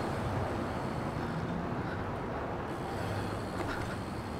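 Steady low rushing noise of a BMX bike being ridden, picked up by a phone's microphone held in the rider's hand.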